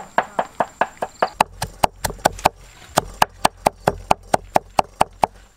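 Cleaver chopping peeled garlic cloves on a cutting board: a steady, even run of knocks, about four to five a second.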